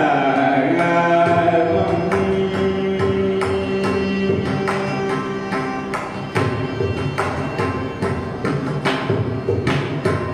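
Carnatic concert music: a male voice singing with violin accompaniment, over steady mridangam strokes. The singing moves in pitch near the start, then long held notes carry on.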